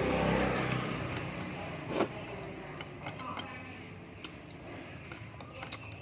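Small, light clicks of eating utensils against a bowl, with one sharper click about two seconds in. They follow a low rumbling swell in the first second.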